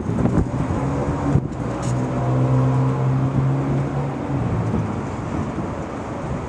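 Rail-yard background noise: a low mechanical hum comes up about a second in and fades after about four seconds, over a steady rumble.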